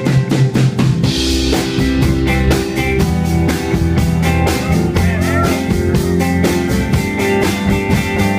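Live rock band playing: a strummed acoustic guitar over a steady drum kit beat, with a cymbal crash about a second in.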